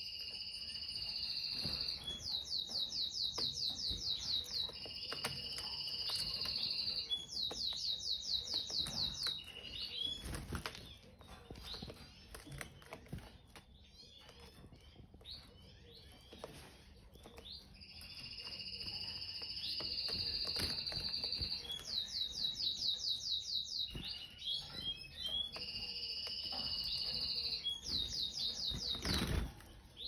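Canary singing: a steady high whistled note alternating with a fast rattling trill, two rounds at the start and two more later, with a quieter stretch in between of faint chirps and the small flutters and clicks of birds moving about the cage. A single sharp knock near the end.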